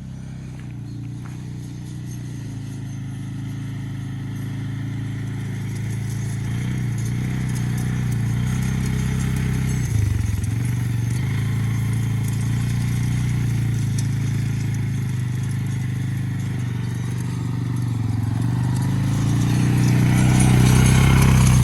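Engine of the vehicle towing a drag harrow over a pasture, running steadily and growing louder as it comes closer, with a brief drop in pitch about halfway.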